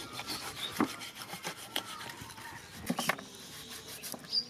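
Knife blade scraping and sawing through a raw lamb carcass, with several sharp clicks between the strokes.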